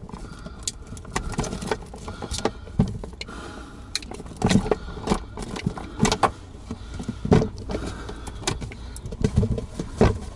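Bundled electrical and antenna cables being handled and pulled about inside a wooden cupboard: irregular rustles, clicks and knocks, with a cluster of louder knocks in the second half, over a steady low hum.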